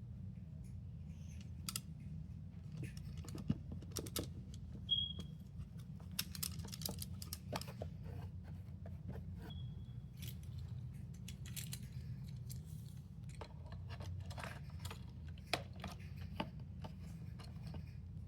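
Small plastic fidget toys being handled and sorted: scattered clicks, taps and light rustling, with two brief high squeaks about five and ten seconds in, over a steady low hum.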